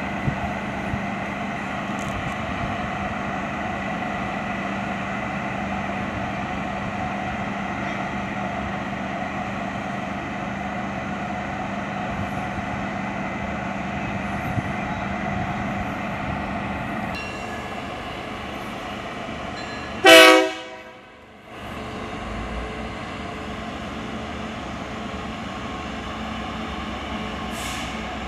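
Diesel locomotive running steadily with a constant engine hum, then one short horn blast about twenty seconds in, the loudest sound.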